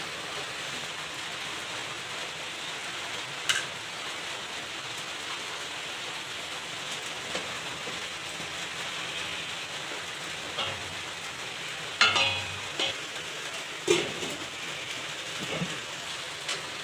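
A pot of chicken broth on the stove, with a steady hiss under it. Two loud metal-and-glass knocks come in the last five seconds as the glass lid is handled and set on the stainless-steel pot, and a lighter click comes earlier.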